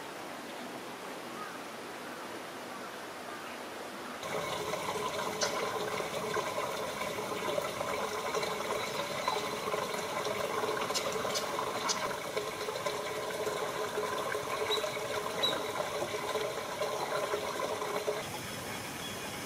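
A steady outdoor hiss, then after about four seconds water running and trickling steadily, with a few brief high ticks. It falls back to the plain hiss near the end.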